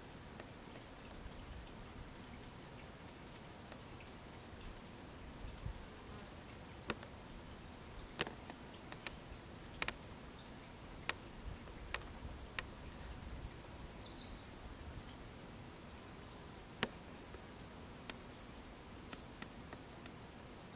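Quiet forest ambience with short, high chirps from a small bird every few seconds and a quick falling trill near the middle. Several sharp clicks are scattered through the second half.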